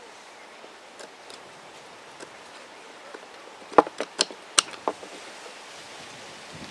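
A small hand chisel paring out a notch in a dried ash stick: a few faint clicks, then a quick run of about six sharp clicks a little past the middle as the edge cuts and chips break away.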